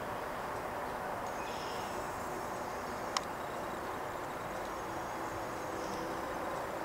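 Steady outdoor background hiss with a single sharp click about three seconds in, and a few faint high-pitched sounds coming and going.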